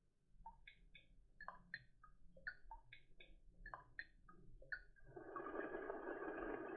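Speaker of a VTech Schnarchi plush sloth toy playing a quick run of electronic melody notes. About five seconds in, a steady hissing noise takes over.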